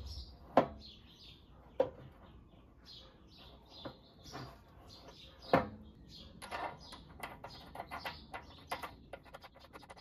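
Three sharp metal clinks of hand tools and parts at a scooter's steering head, then a run of lighter clicks and rattles from about six and a half seconds on. Small birds chirp in the background.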